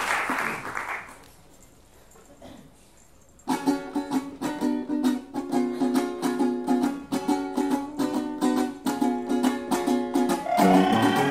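Applause dies away in the first second, then about two seconds of quiet. A tuna's guitars and bandurrias then break into a brisk strummed introduction to a Venezuelan song, a steady rhythm of repeated chords.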